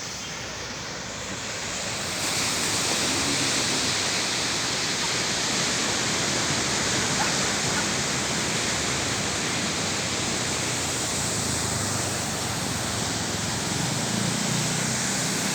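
Steady rush of sea surf breaking on a beach, growing louder about two seconds in.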